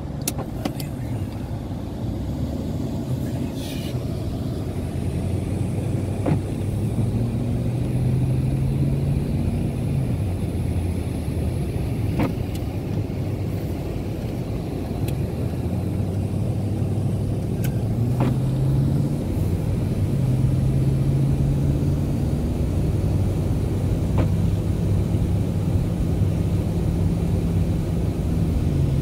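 BMW's engine and tyres heard from inside the cabin while driving; the engine note rises as the car pulls away and drops back at each gear change. A faint click comes about every six seconds, the windscreen wipers on intermittent.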